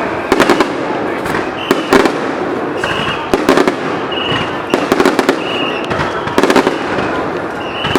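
Aerial fireworks bursting in rapid clusters of sharp cracks and pops about every second or so, with brief high whistles between the volleys.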